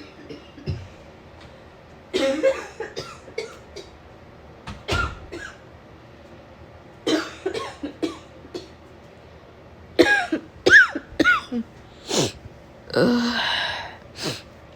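A woman coughing in repeated fits, short clusters of coughs every second or two, some with a voiced groan in them, the cough of a head cold.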